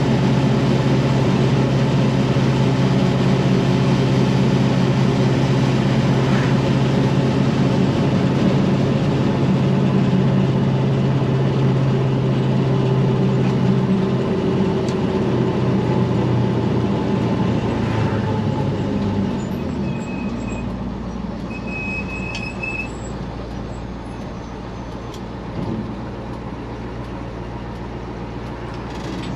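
International 4600 dump truck's 7.3 L IDI non-turbo diesel running steadily as the truck drives. About two-thirds of the way in, the engine note drops lower and quieter as the truck slows, and a brief high squeal follows a couple of seconds later.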